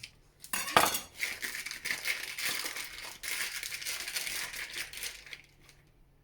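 Plastic food packaging crinkling and crackling as a packet of cheese is opened and handled, with a sharp snap about a second in.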